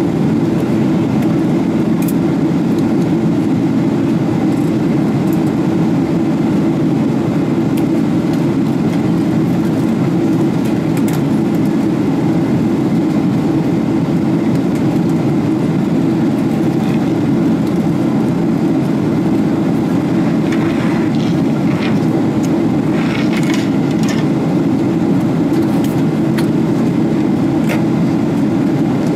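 Steady low drone inside the cabin of a Boeing 777-300ER in flight: its GE90 jet engines and the airflow past the fuselage, heard from a window seat over the wing.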